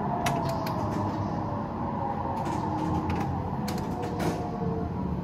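Train driving simulator's electric-train running sound as the train brakes to a near stop: a steady low rumble with a faint whine that drifts slightly lower, and a few light clicks.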